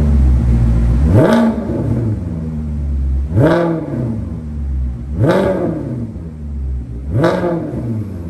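Naturally aspirated Maserati V8 revved in four quick throttle blips about two seconds apart, each rising and falling in pitch and dropping back to idle between them. It sounds through an aftermarket valved exhaust with the cut-out valve closed, its quiet setting.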